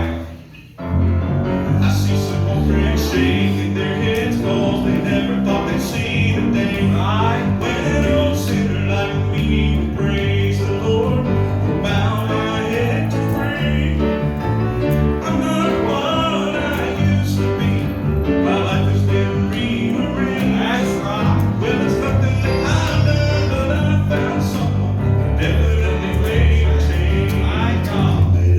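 Gospel group singing with instrumental accompaniment and a strong bass line. There is a brief dip in the sound just under a second in.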